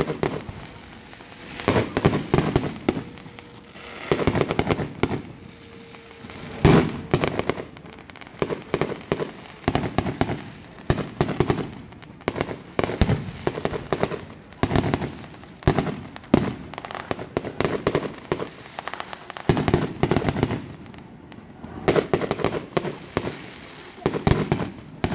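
Aerial fireworks display: rapid volleys of shell bursts and crackling bangs, coming in clusters a few seconds apart with brief lulls between them.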